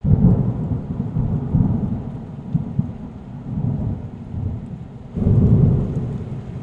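Thunder rumbling in low, rolling waves: loud at the start, easing off, then swelling again about five seconds in.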